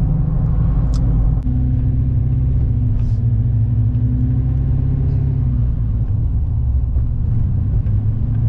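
Steady low rumble of engine and road noise inside a moving GMC vehicle's cabin while it drives.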